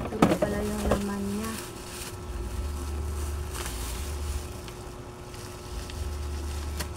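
Plastic bubble wrap crinkling and rustling as a small fan is pulled out of it. The crackles come in clusters, thickest in the first second. A low hum comes and goes underneath.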